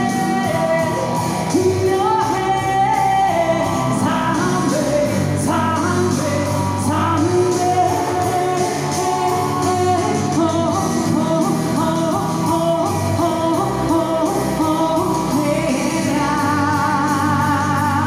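A woman singing live into a microphone while strumming an acoustic guitar. Near the end she holds a long note with a wide vibrato.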